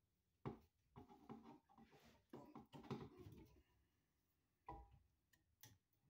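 Faint clicks, scraping and taps of a light switch and its wires being pushed into a wall electrical box, with a sharp click about half a second in and a knock near the end.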